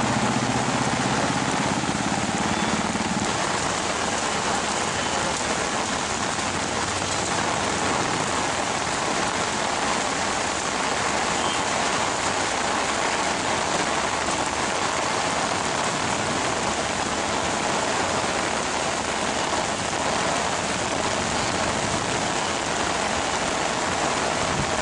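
Heavy monsoon rain falling steadily on a wet road, a constant dense hiss of rain on the surface.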